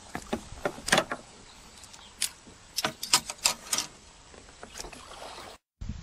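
Water splashing in a quick, irregular run of sharp splashes over a light steady hiss, busiest in the first four seconds.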